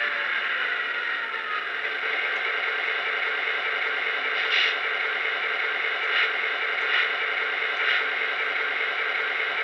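Lionel EMD SD9 model diesel's onboard electronic sound system idling while the locomotive stands stopped: a steady hissy engine hum through its small speaker, with a sound that winds down in pitch over the first second or two. Four short clicks come in the second half.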